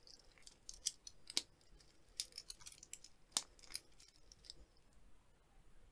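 The stainless steel bracelet and fold-over clasp of a Pagani Design PD1685 being handled: scattered light metallic clicks and clinks, two of them sharper, about one and a half and three and a half seconds in.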